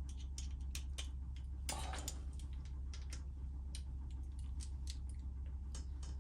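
Torque wrench ratcheting on bolts in a Harley-Davidson Twin Cam 96 cam chest: sharp clicks in short, irregular runs, with a slightly longer scrape about two seconds in, over a steady low hum.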